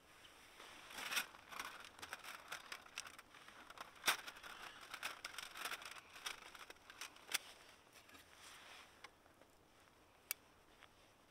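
A folding aluminium stove windscreen and a small camping gas stove being handled and packed up: a run of light metallic clinks, rattles and crinkles, with one sharp click near the end.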